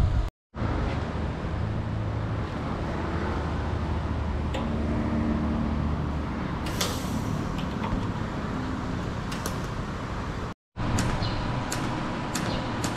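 Steady machine hum and noise, with a few light clicks and taps now and then. The sound drops out briefly twice.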